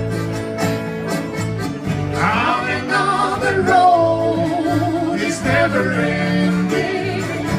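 Live band playing a song on acoustic and electric guitars with accordion, a singing voice coming in about two seconds in.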